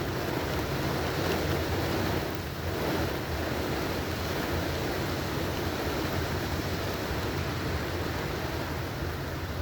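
Heavy rain pouring down on and around a car, heard from inside through an open window as a steady rushing wash, with a constant low hum underneath.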